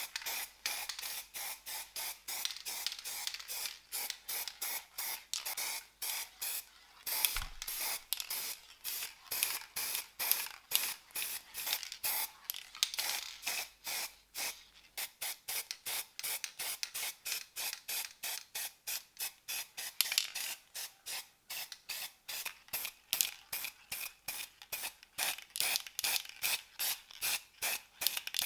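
Steady back-and-forth hand rubbing or scraping on the model car's body, about three to four even strokes a second.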